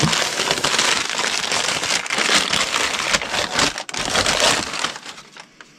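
Plastic bag and crumpled packing paper crinkling and rustling as a mug is unwrapped by hand, dying down near the end.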